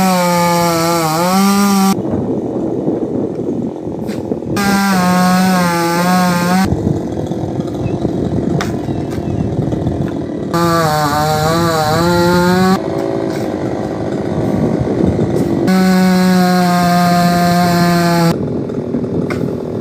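Chainsaw cutting through a coconut palm trunk. It comes up to a high, wavering engine note four times for about two seconds each, its pitch dipping as it bites into the wood, with rougher running in between.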